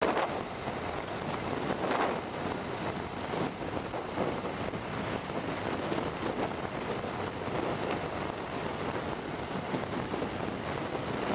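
Wind rushing over the microphone of a camera on a motorcycle riding at road speed, a steady rush with a few brief gusts.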